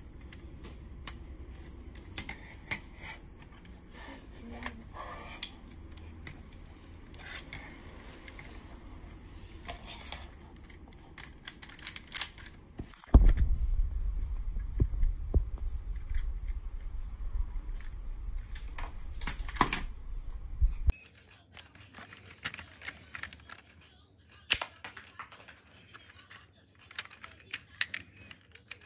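Clicks, snaps and knocks of plastic Lego parts as a hand handles and works a brick-built mini pistol. A steady low hum sits under the clicks through the middle stretch.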